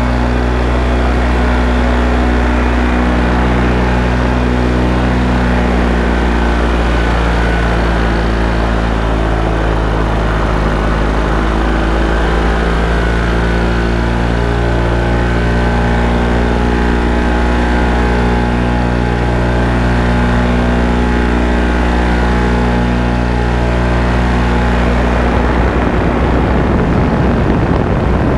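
Paramotor engine and propeller running steadily at cruise in flight, with a loud, even engine note; the note roughens and loses its steadiness about two seconds before the end.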